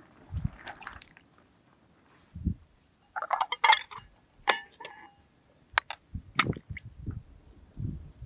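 Dishes and utensils clinking and knocking in scattered, irregular strokes, with a few duller thuds, as broth is handled and served.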